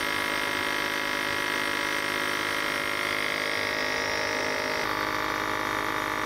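Electric nebulizer compressor buzzing steadily as it mists saline solution for inhalation. Its tone shifts slightly about five seconds in.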